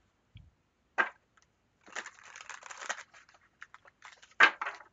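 A deck of tarot cards being handled and shuffled: a sharp card snap about a second in, a rustle of shuffling for about a second from around two seconds, then scattered light card flicks and another snap near the end.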